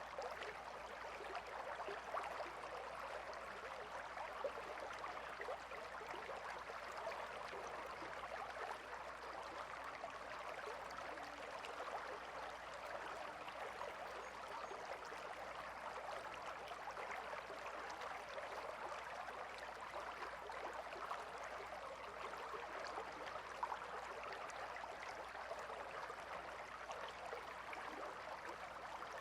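Shallow river flowing and babbling steadily over stones: a continuous splashing rush with many small bubbling trickles.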